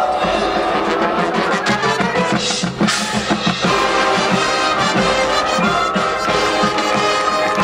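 High school marching band playing: the brass holds chords over a driving pattern of drum hits, with a loud crash about three seconds in.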